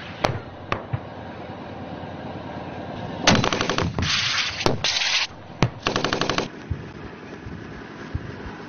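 Gunfire: two single sharp shots in the first second, then short bursts of rapid automatic fire about three and six seconds in, with a hissing noise and a lone shot between the bursts.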